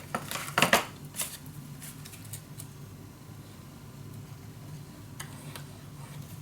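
Card and paper being handled and pressed down by hand: a quick cluster of rustles and light taps in the first second or so, two faint ticks later on, over a low steady hum.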